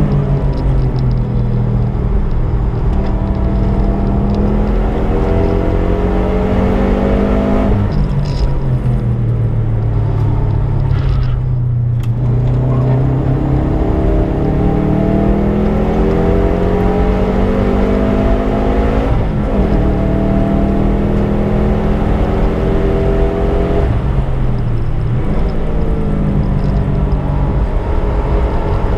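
Subaru Impreza's turbocharged flat-four engine driven hard on track: the revs climb again and again, dropping sharply at gear changes about eight, nineteen and twenty-four seconds in. Around ten to twelve seconds in the engine note falls off and dips as the car slows, before pulling hard again.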